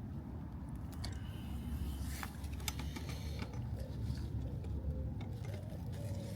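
Hand tools working a compression nut on copper pipe: a few light metallic clicks and scrapes over a steady low rumble.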